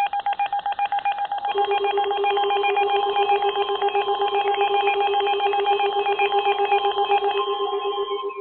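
Canadian Alert Attention Signal for an emergency broadcast alert: a loud electronic warble of several high tones alternating very fast, lasting about eight seconds. A lower pulsing tone joins about a second and a half in, and the signal cuts off near the end.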